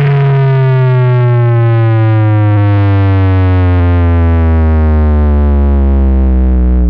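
A sound system playing one long synthesized tone, heavy in deep bass, that slides slowly and steadily down in pitch and cuts off suddenly near the end.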